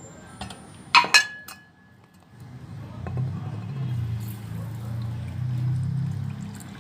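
A dish clinks twice, sharply, then milk is poured over the cooked wheat in the bowl for about four seconds.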